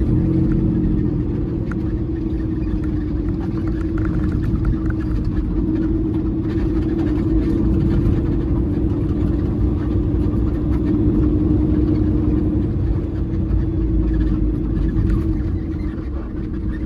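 Semi truck's diesel engine droning steadily under way, with a low road rumble and a constant hum.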